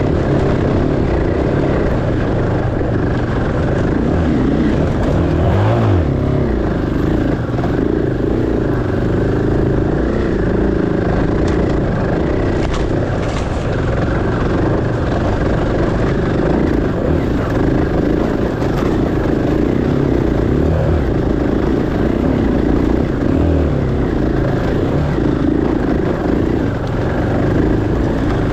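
Enduro dirt bike engine running as the bike is ridden, its pitch wavering up and down with the throttle.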